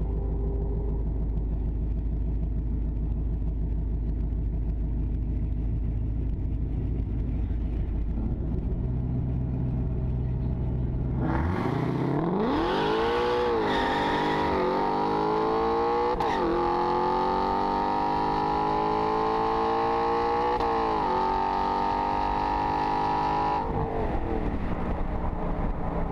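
A 5.0 Mustang's V8, running a 100-shot nitrous kit, idles steadily with a low rumble, then launches at full throttle about eleven seconds in. In the first few seconds of the run the revs flare and fall unevenly as the rear tyres spin hard. The engine then climbs in pitch through its gear changes and drops away near the end as the throttle is lifted.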